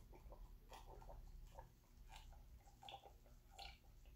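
Near silence: faint swallowing and small irregular clicks as a man drinks from a plastic cup, over quiet room tone.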